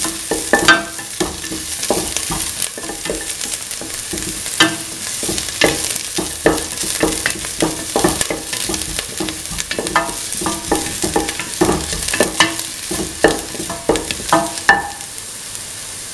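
Chopped onion sizzling in hot oil in a stainless steel pan, being sautéed. A spatula repeatedly scrapes and knocks against the pan while stirring, and the stirring stops near the end, leaving only the sizzle.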